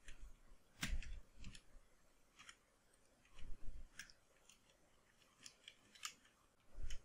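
Computer keyboard keys clicking faintly and irregularly as code is typed.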